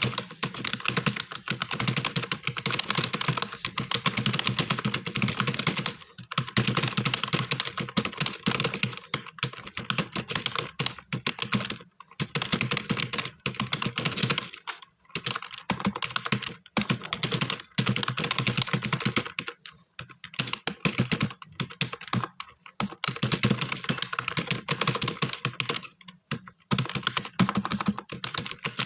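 Very fast typing on a computer keyboard: a dense stream of keystrokes in long runs, broken by brief pauses every few seconds.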